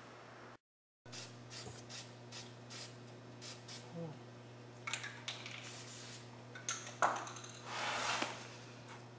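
Aerosol spray-paint can hissing in a series of short bursts, with a longer spray near the end, over a steady low hum.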